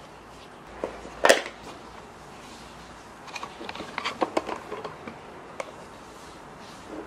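Acacia-wood deck tiles being handled in a cardboard box: a sharp knock a little over a second in, the loudest sound, then a run of light clicks and rattles as a tile with its plastic snap-together base is lifted out.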